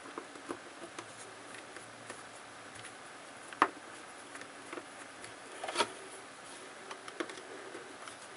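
Small screwdriver turning a screw into a laptop LCD's metal mounting bracket, the screw being brought just snug: scattered light clicks and ticks, with two sharper clicks about three and a half and six seconds in.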